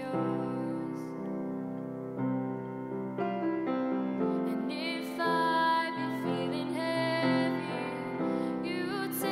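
Slow ballad sung by a female voice over piano accompaniment, held chords changing every second or two, with vibrato on sustained notes.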